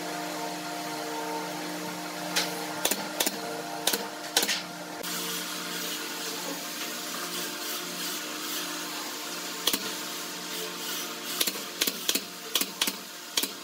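Pneumatic brad nailer firing nails into wooden trim as sharp single shots: a few about two to four and a half seconds in, then a quick run of about seven shots near the end.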